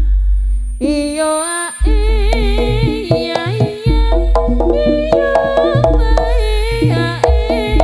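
Jaranan ensemble music: a wavering, ornamented melody line over busy hand-drum strokes and heavy bass, played loud through a sound system. A held low note opens it, and the melody comes in about a second in.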